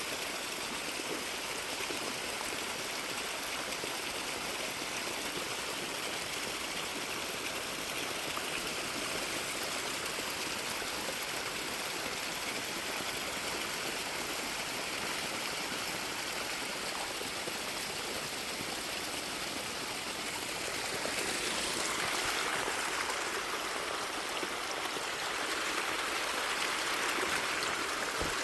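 Running water of a spring-fed stream, flowing steadily, growing a little louder twice in the last third.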